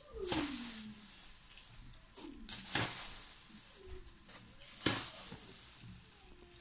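Spoonfuls of sugar poured into a bowl of whipped egg batter: faint rustling pours with a few light knocks of the spoon.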